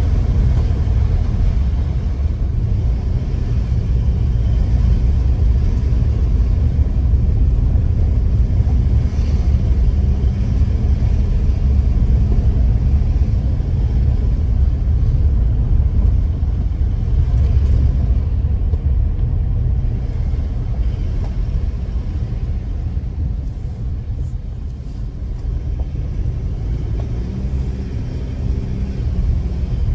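A car driving along, its engine and road noise making a steady low rumble.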